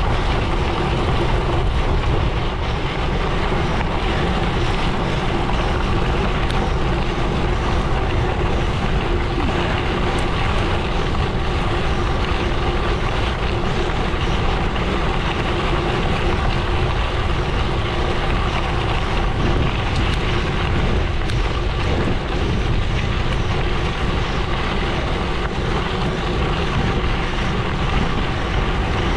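Gravel bike riding at speed: tyres rolling steadily over the road, with heavy wind buffeting on the microphone.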